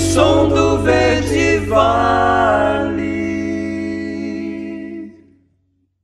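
End of a rock song: voices sing a last line over a held chord, which fades out about five seconds in.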